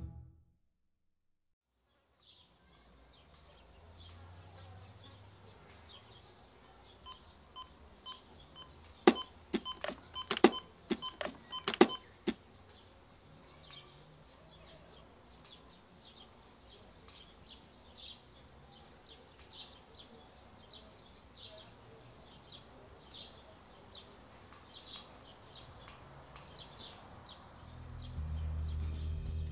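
Faint room tone, broken about nine to twelve seconds in by a quick run of sharp electronic beeps and clicks. After that, faint high chirps recur irregularly.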